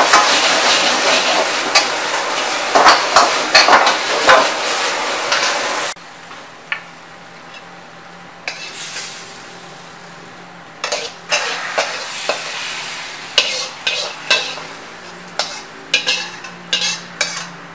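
Beef and cauliflower sizzling in a hot wok, with a metal ladle clanking against the wok as it is stirred. About six seconds in the sizzle cuts off, and a quieter run of sharp metal scrapes and clinks follows as the ladle pushes the food out of the wok onto a plate.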